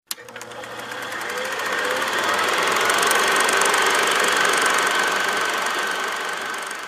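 Steady, rapid mechanical clatter from a small machine, starting with a sharp click, swelling up to the middle and then fading out.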